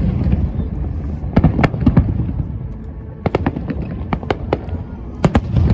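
Fireworks going off: a scattered run of sharp cracks and pops over a continuous low rumble, with the cracks bunched a little over a second in, again past the middle, and near the end.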